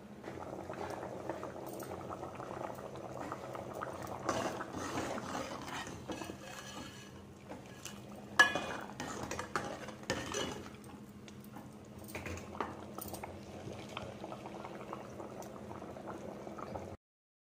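Pot of white chickpea curry boiling with a steady bubbling, while a steel ladle stirs and knocks against the metal pot. The sharpest clank comes about eight seconds in, and the sound cuts off suddenly near the end.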